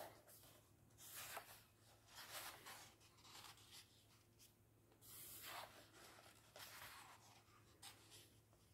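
Faint paper rustling: hands sliding over and turning the large pages of a colouring book, in several soft swishes.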